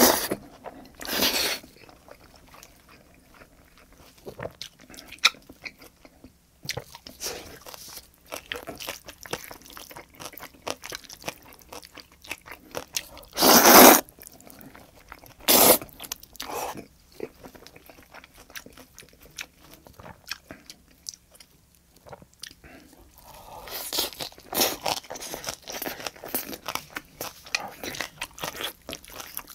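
Close-up eating sounds: tomato spaghetti slurped in short, loud slurps near the start and twice about halfway through, with wet chewing and crunching of green onion kimchi in between.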